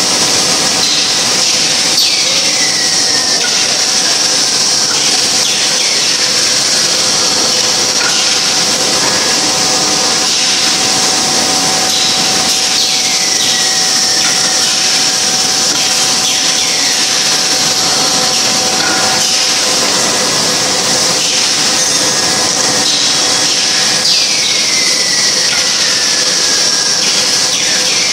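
Wafer biscuit production line machinery running: a loud, steady mechanical noise with a constant hum, and a short falling squeal that comes back every few seconds.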